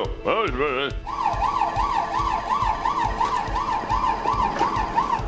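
Cartoon ambulance siren sound effect, a fast wail rising and falling about two and a half times a second, starting about a second in after a short warbling sound.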